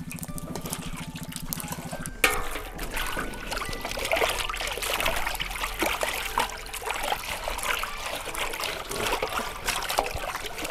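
Snakehead murrel fish pieces cooking in their own juices in a large iron wok over a wood fire: a wet bubbling and sizzling full of small crackling pops. A steady low hum runs under the first two seconds and stops with a sharp click.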